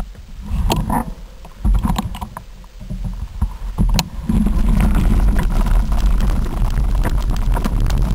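Bike-mounted camera on a trail ride: a few knocks and uneven wind rumble at first, then from about four seconds in a steady loud rumble of wind on the microphone with the bike rattling and clicking over rock and gravel as it rolls along.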